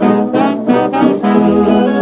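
Instrumental background music with layered, held chords.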